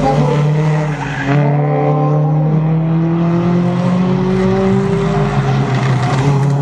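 Toyota Altis race cars' engines running hard through a corner, their pitch climbing slowly over several seconds.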